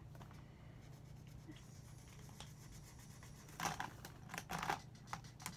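Low steady hum with light handling noise: a short run of clicks and scratches about three and a half seconds in as plastic felt-tip markers are rummaged through in a cup and one is picked out, with faint marker-on-paper scratching.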